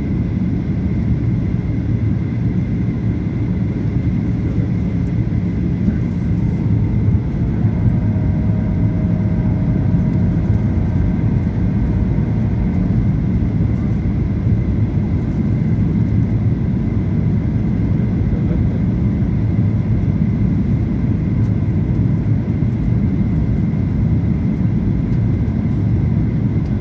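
Steady cabin noise inside a Boeing 737-800 descending through cloud: a low, even rush of airflow and jet-engine noise. A faint high whistle holds steady throughout.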